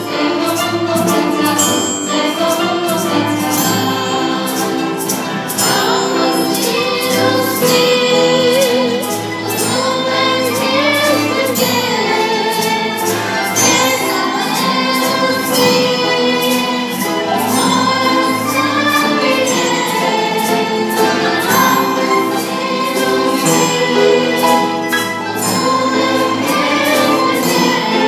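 Live ensemble of qanuns, acoustic guitars, piano and duduk playing a song together, with girls singing and a triangle keeping a steady beat.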